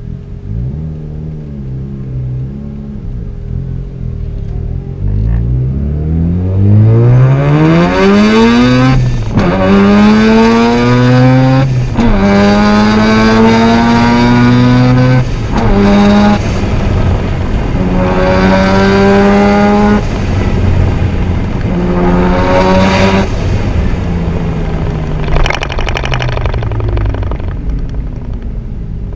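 Mazda RX-7 Spirit R's twin-turbo 13B rotary engine pulling hard under full load, its note climbing steeply, then a run of pulls each rising in pitch and broken by a short gap at each gear change. It eases off near the end.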